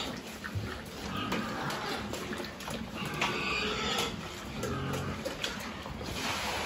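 Young pigs eating wet mash at a round feeder: steady wet chewing and slurping with many small clicks, and short grunts here and there.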